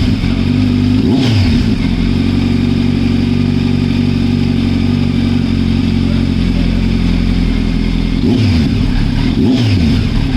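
Kawasaki Z900's inline-four engine running through a freshly fitted Arrow Pro Race titanium exhaust with the dB killer removed. It is blipped once about a second in, idles steadily, then is revved in a few quick blips near the end.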